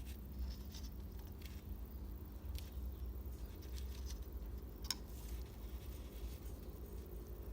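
PTFE tape being wrapped around the threads of a fuel pump union: faint rustling and scattered light clicks from handling the fitting, the sharpest click about five seconds in, over a low steady hum.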